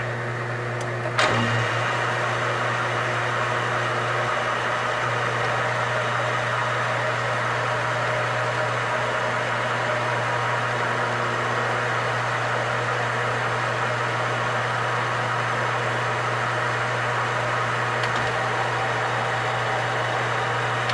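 Metal lathe running steadily during a single-point thread-chasing pass on an aluminum part, a steady motor hum with cutting noise. A sharp click about a second in, after which the running gets slightly louder.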